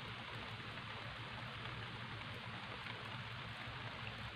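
Faint, steady background hiss with a low hum underneath. No distinct knocks or splashes stand out.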